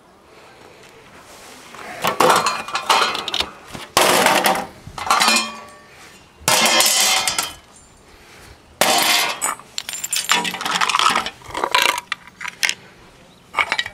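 Pieces of scrap metal from dismantled appliances clattering and clinking in repeated bursts, each up to about two seconds long, beginning about two seconds in.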